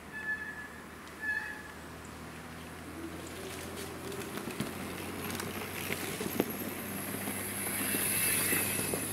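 Mountain bikes riding down a dirt forest trail: tyres crunching over the ground with rattles and clicks from the bikes, growing louder as a rider passes close by near the end. Two short high squeaks in the first second and a half.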